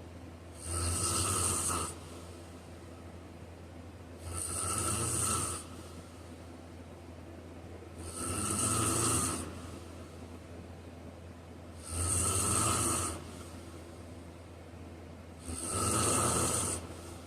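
A man snoring in slow, regular breaths: five hissy snores, each about a second and a half long, roughly every four seconds.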